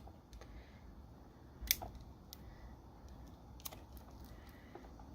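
Hands opening a toy's cardboard box packaging: a few faint, scattered clicks and taps, the sharpest a little under two seconds in.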